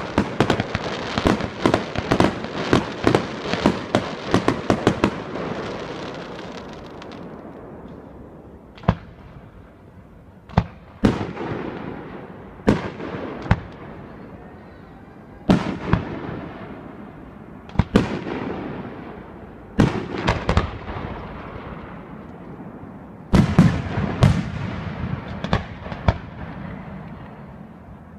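Aerial fireworks display. A fast run of crackling reports fades out over the first five seconds. Then single shell bursts follow every second or two, some in quick pairs, with a dense cluster of bangs near the end.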